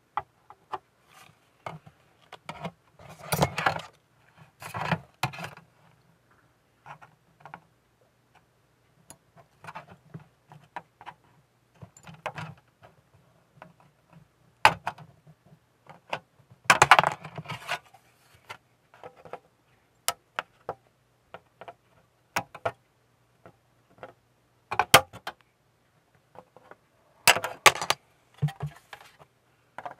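Small plastic model kit parts and hobby tools clicking and clattering on a work surface during assembly of the kit's flight deck: scattered sharp clicks between short bursts of clatter, the loudest about 17 seconds in and again near the end.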